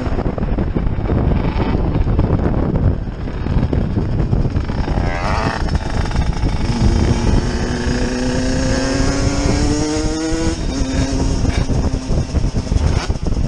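Motorcycle engines running on the move, with wind noise on the microphone. About five seconds in, an engine revs up, its pitch climbing steadily for several seconds under acceleration before dropping back.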